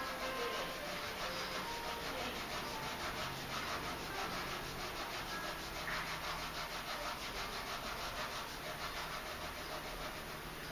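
Pen nib scratching on paper in quick, repeated strokes, several a second, as lines are drawn and shaded.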